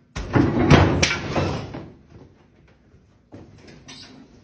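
Loud banging and clattering: several sharp knocks in the first second or so, dying away by about two seconds in, then quieter shuffling near the end.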